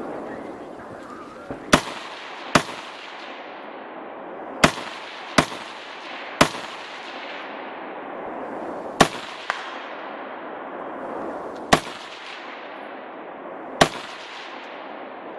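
Rifle shots: about eight sharp cracks at uneven intervals, each followed by a long echoing tail, over a steady background hiss.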